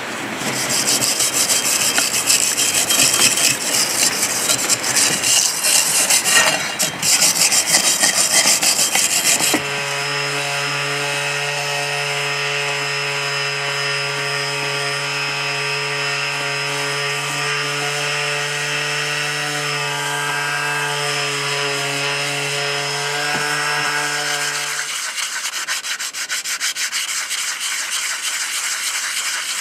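Harsh scraping and scratching for about the first ten seconds. Then an angle grinder with an abrasive disc runs steadily against the painted steel blade of a post hole digger, stripping off the old paint. It stops about 25 seconds in and gives way to the rhythmic rubbing of a hand sanding sponge on the blade.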